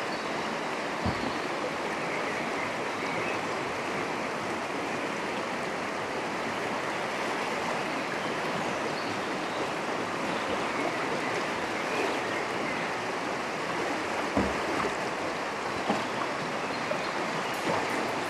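River water rushing steadily over a shallow riffle, an even wash of flowing-water noise, with a few faint brief knocks about a second in and again near the end.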